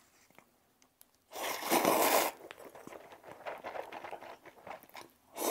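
Two paper-tearing sound effects, the first about a second and a half in and the second near the end. Between them come soft crackly eating noises from a mouthful of instant noodles.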